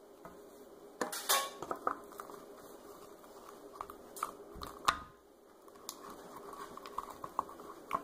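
A craft stick knocking and scraping against the inside of a plastic cup while stirring slime: scattered clicks and clacks, loudest about a second in.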